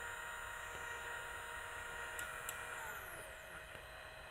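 Faint electric whine from the Selpic Star-A mini 3D printer's stepper motors as the axes move during bed levelling. The pitch falls as the motion slows, and it stops about three seconds in, with two light ticks just before. A steady low hum remains underneath.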